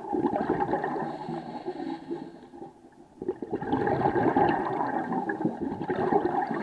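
Scuba diver's regulator breathing underwater: a rush of gurgling exhaust bubbles, a brief lull about three seconds in, then bubbling again with the next breath.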